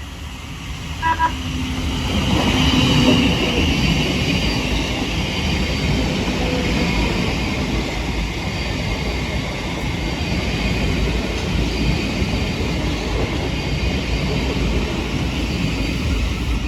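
Thameslink Class 700 electric multiple unit running along the platform, with steady rumble and wheel-on-rail noise. A brief toot from the train's horn sounds about a second in.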